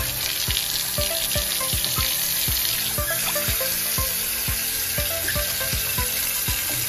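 Water running from a new laundry faucet, a steady hiss, while the faucet is checked for leaks. Background music with a steady beat about twice a second plays over it.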